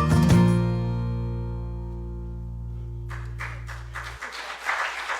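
A worship band's closing chord, with guitar, rings out and fades, and its low sustained notes cut off suddenly about four seconds in. Over the last couple of seconds there is an irregular noisy patter from the congregation.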